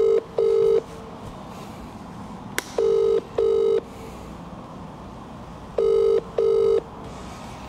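UK-style telephone ringback tone on a mobile phone's speaker: three double rings, about three seconds apart, as the outgoing call rings unanswered. A single sharp click sounds between the first and second double ring.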